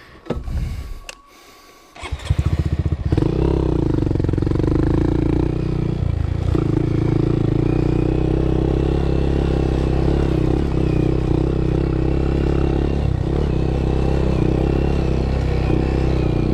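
A small motorcycle's single-cylinder engine starts about two seconds in, then runs steadily as the bike rides along.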